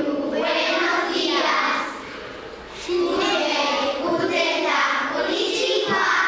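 A class of young children singing together in unison, in held phrases with a short break about two seconds in.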